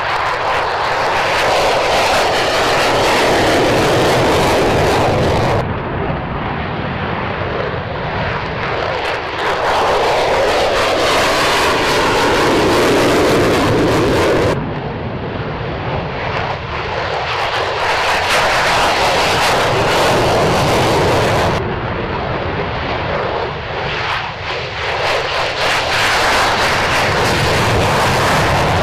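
Loud jet engine noise from an F-35 Lightning II's single Pratt & Whitney F135 turbofan, in several clips joined by abrupt cuts, each segment a dense, steady rush of noise.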